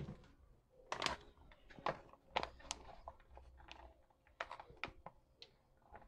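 Faint, irregular clicks and light taps of kitchen things being handled: containers and utensils set down and moved on the counter.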